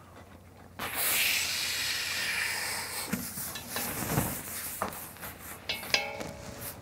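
A steady hiss starts suddenly about a second in and eases off over the next couple of seconds, followed by light rubbing, a few small knocks and a brief clink.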